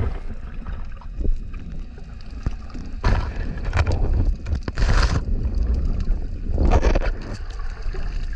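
Underwater camera audio: a low, muffled rumble of water moving around the camera housing, with a few louder rushing swells and scattered faint clicks.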